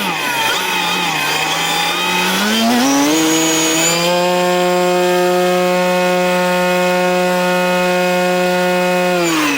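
A model aircraft's motor and propeller running up: the pitch climbs over a couple of seconds, holds steady, then winds down quickly near the end.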